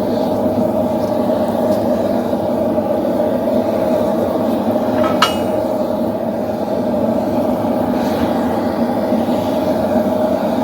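A forge running with a steady, low rushing noise. About halfway through comes a single sharp metallic clink that rings briefly.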